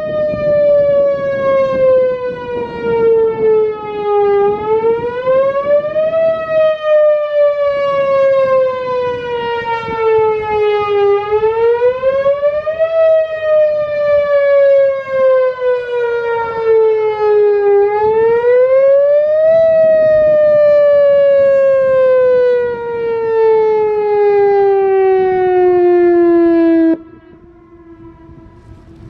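Whelen Vortex electronic outdoor warning siren sounding its wail signal in a monthly test. The pitch rises quickly over about two seconds and falls slowly over about five, three full cycles. After a long final fall it cuts off abruptly near the end.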